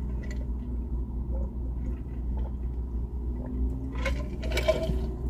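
Steady low rumble inside a car cabin, with quiet chewing and mouth sounds of someone eating a sandwich, clustered about four seconds in.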